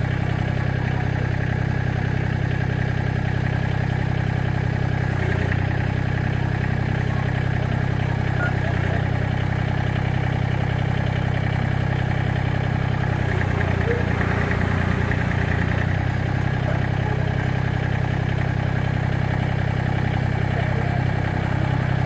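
Massey Ferguson GC1710 sub-compact tractor's three-cylinder diesel engine running steadily, its note shifting briefly about two-thirds of the way through.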